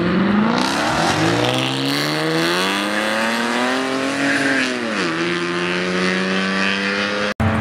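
Dodge muscle car's engine revving up hard as it accelerates away through the gears: the pitch climbs, drops about a second in, climbs again for several seconds, then falls at about five seconds and holds steady.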